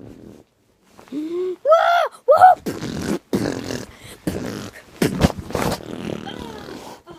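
A child's voice making playful noises: a few short whoops that rise and fall in pitch, then a string of rough, breathy mouth noises in short bursts.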